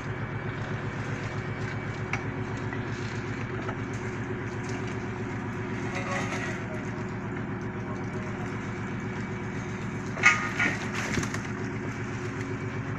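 A fishing trawler's diesel engine running steadily with a fast, even pulse. Two sharp knocks come close together about ten seconds in.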